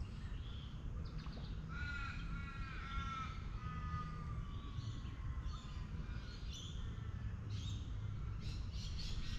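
A crow calling: three short caws, then one long drawn-out call that slowly falls in pitch.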